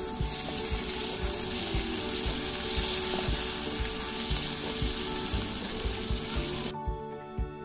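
Maize kernels and chopped vegetables sizzling in oil in a wok as they are stirred with a wooden spatula. The sizzling stops suddenly about a second before the end, leaving background music with a steady beat.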